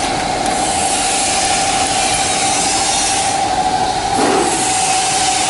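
Steady loud machinery noise: an even hiss with a constant mid-pitched whine, and a short low swell a little after four seconds in.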